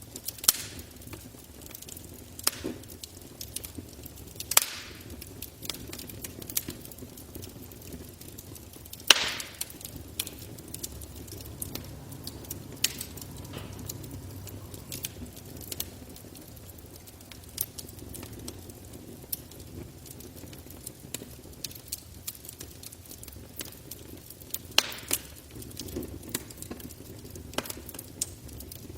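Campfire burning, wood crackling with irregular sharp pops, a few of them loud, over a low steady rumble of the flames.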